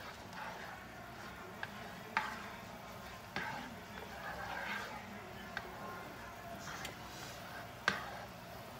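A utensil stirring a sauce in a pan on the stove, with a sharp click each time it knocks against the pan (about six knocks), over a light sizzle.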